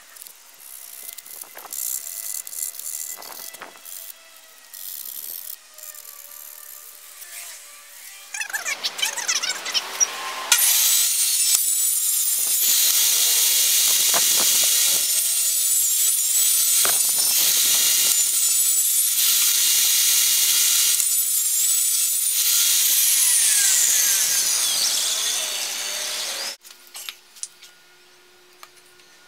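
Light scraping and rubbing of hand work on a hardboard template. Then a benchtop table saw speeds up and runs loud and steady for about sixteen seconds while cutting a thin sheet, and stops suddenly. Near the end come a few sharp taps of a mallet on a wooden frame.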